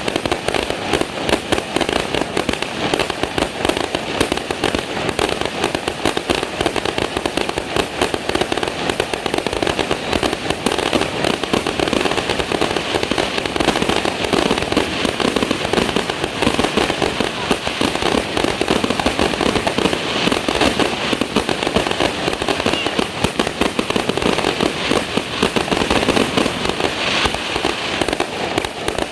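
Fireworks going off in a rapid, continuous crackle of closely packed bangs, with no pause.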